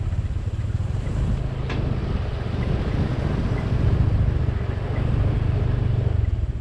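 Motorcycle engine running steadily at low speed as a low rumble while riding a rough dirt track. There is a brief click a little under two seconds in.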